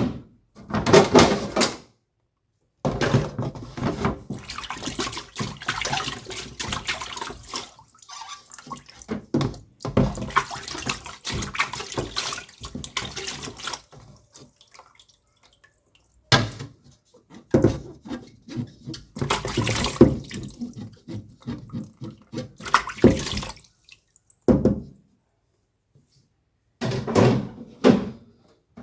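Water splashing and sloshing in irregular bursts, as of clothes being washed by hand in a basin.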